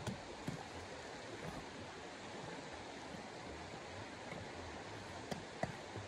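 Steady rushing background noise with a few short knocks of camping gear being handled and packed into a backpack, two near the start and two close together near the end.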